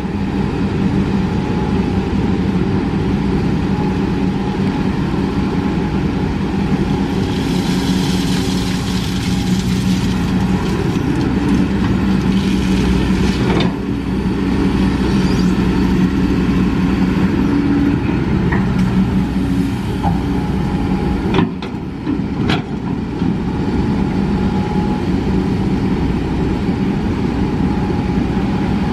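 Kobelco SK200 hydraulic excavator's diesel engine running steadily under load as the machine digs and swings through a gravel pile. A hiss rises about a quarter of the way in, and a few sharp knocks come near the middle and again about two-thirds through.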